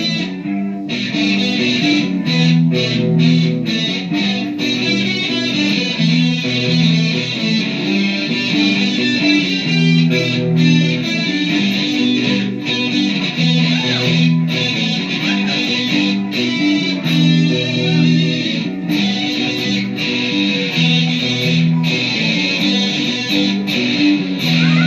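Guitar playing a repeating chord progression, plucked and strummed.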